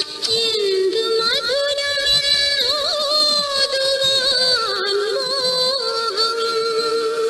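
Music: a song with a solo voice singing a melody of held notes with ornamented bends in pitch.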